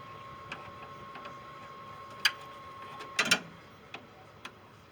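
A few sharp clicks and knocks of tools and parts being handled in the engine bay, the loudest a short cluster about three seconds in, over a faint steady high whine that stops at that moment.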